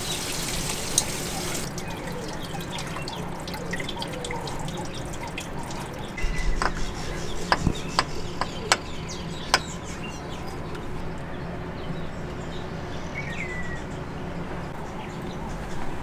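Cooling water trickling and dripping from the leaking water hose of a DKW Auto Union 1000S engine. Several sharp metallic clinks come in the middle, and birds chirp now and then.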